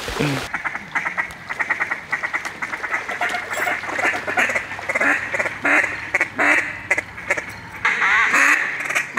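Mallard quacking: fast strings of short quacks and chatter, several a second, with brief pauses between runs and the loudest calling near the end.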